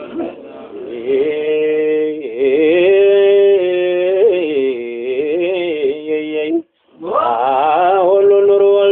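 A man singing menzuma, an Ethiopian Muslim devotional song, in long held, wavering notes. The voice breaks off briefly about seven seconds in, then comes back on a new rising phrase.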